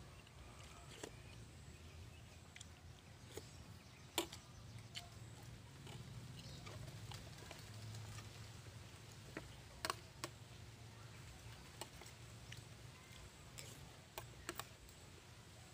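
Spoon clinking and scraping on a plate while eating: a scattering of sharp clicks, the loudest about four seconds in, two close together near the middle and two more near the end, over a faint low hum.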